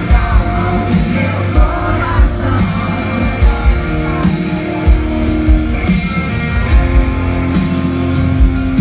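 A band plays a Catholic worship song with singing, over drums and a steady bass line.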